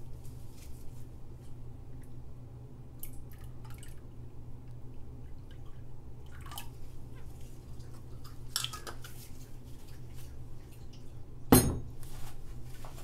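Beer poured from a glass bottle into a plastic bucket of soap-making oils, with light dripping and small glass clinks over a steady low hum. A single loud knock comes about a second and a half before the end.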